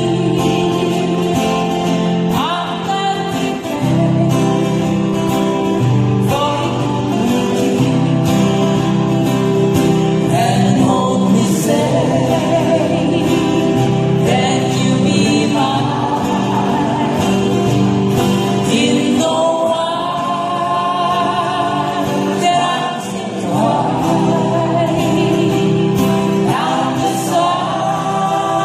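Acoustic guitar band performing a song live: strummed acoustic guitars under sung vocals.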